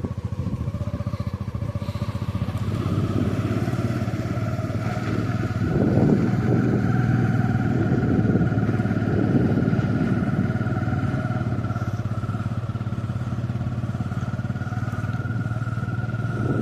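An engine running steadily with a deep hum and a whine that slowly rises in pitch, getting rougher and a little louder for a few seconds in the middle.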